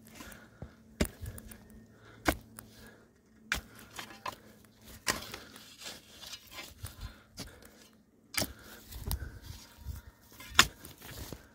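Footsteps through dry grass and weeds, with rustling and irregular sharp clicks, the loudest near the end.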